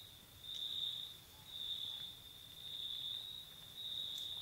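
A cricket trilling: a high, even trill repeating in runs of under a second with brief breaks, about once a second.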